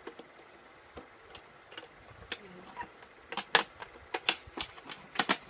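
Irregular sharp clicks and taps as a makeup kit case and its packaging are handled and opened, with loud clusters in the second half.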